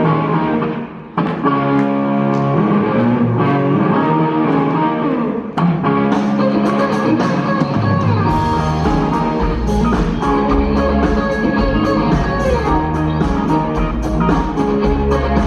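Band music led by guitar, notes picked and held over a steady pulse; about eight seconds in, bass and drums come in under it.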